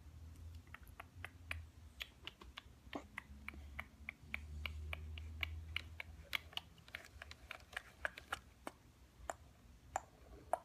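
Irregular small clicks and taps, several a second, over a low rumble of the phone being handled close to the microphone.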